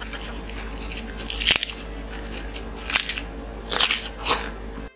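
Close-up eating sounds: several crisp crunches and chewing as fried chicken and fresh cucumber are bitten, over a steady low hum. Music begins right at the end.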